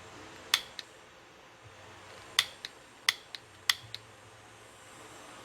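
Igniter of a Snap-on YAKS42 butane soldering iron being clicked four times, each press giving a sharp click followed by a softer click as it is released. The flame is not catching: the iron fails to ignite.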